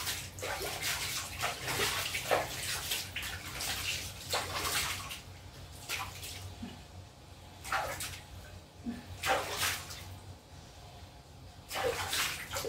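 Water splashing and sloshing in a plastic basin as a dog is washed and scrubbed by hand, in irregular bursts, thinning out in the second half.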